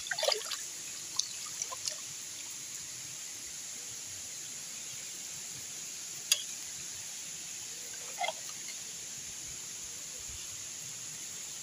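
Steady high-pitched insect chorus, with a few faint clicks near the start and one sharp click about six seconds in.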